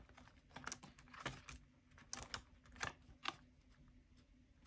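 Faint, irregular clicks and crinkles of clear plastic binder sleeves and polymer banknotes being handled and turned.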